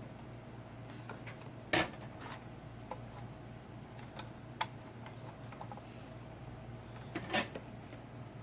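Small clicks and taps of hand tools and wire being handled on a workbench during amplifier board repair, with two louder clicks about two seconds in and near the end, over a steady low hum.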